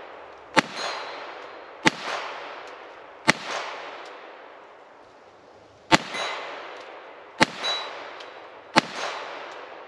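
Browning 1911-22 .22 LR pistol fired one-handed, six single shots at an uneven pace, each with a long echoing tail. A brief high metallic ring follows a few of the shots.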